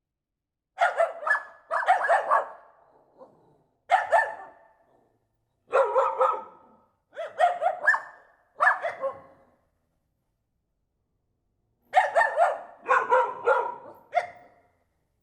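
Dog barking in short volleys of two to four barks, each volley followed by a second or so of silence, with a longer pause of about two seconds past the middle before a final run of barks.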